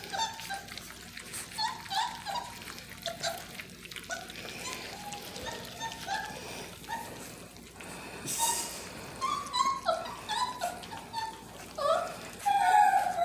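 Basset hound puppies eating mush from a shared bowl: wet lapping and smacking, with frequent short high squeaks and whimpers from the puppies, and a longer falling whine near the end.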